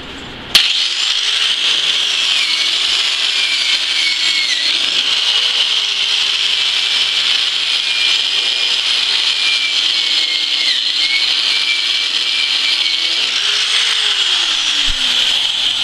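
Angle grinder running a wheel along a flux-core weld bead to clean off slag between passes. It starts suddenly about half a second in and runs steadily, its pitch dipping and recovering several times as it is pressed onto the metal.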